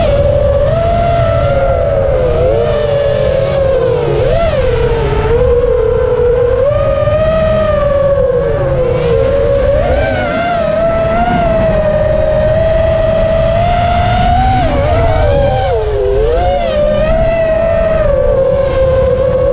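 FPV freestyle quadcopter's motors and propellers whining in flight, the pitch wavering with the throttle and dipping sharply twice, about four and sixteen seconds in, over a steady low rumble.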